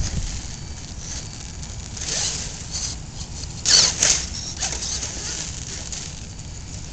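Radio-controlled rock crawler's electric motor and drivetrain whining in short high-pitched bursts as it climbs and scrabbles over boulders, the loudest burst about four seconds in. Wind rumbles steadily on the microphone underneath.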